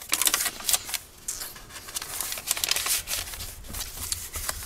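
Paper and cardstock pages of a handmade journal rustling and crinkling as they are turned and handled, with a small card being pulled from a page pocket; a run of short crinkles and soft taps.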